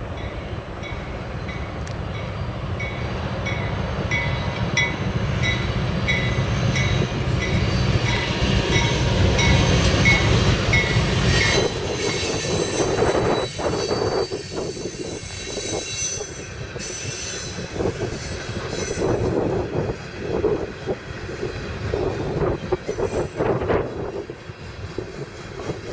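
A CSX GE ES40DC diesel locomotive passes close by, its V12 diesel engine rumbling louder as it approaches, with a regular high tick about twice a second over it. About twelve seconds in, the engine noise falls away and the wheels of the trailing container cars roll past with irregular clanks and wheel squeal.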